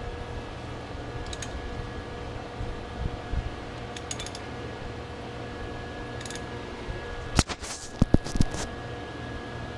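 Steady background hum with a few faint light clicks; about seven seconds in, a sharp metallic click and then a quick cluster of knocks as a wrench is bumped against a stuck fastener to break it loose.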